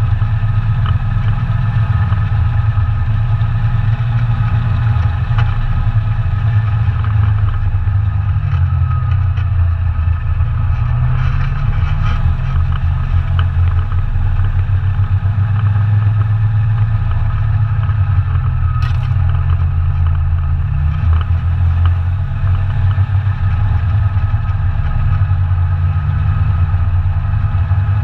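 ATV engine running steadily under way, a continuous low drone whose pitch rises and falls slightly with the throttle.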